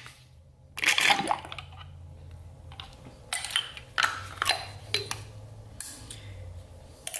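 Wet squishing and light clicking from a fluid-soaked 4L80E intermediate servo cover, piston and spring being worked out of the transmission case by gloved hands, in a few short bursts. A low steady hum runs underneath.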